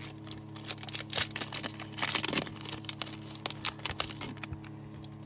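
Foil wrapper of a Pokémon trading-card booster pack crinkling and tearing as it is opened by hand, in irregular crackles with sharper clicks about a second in and around two seconds in, over a steady low hum.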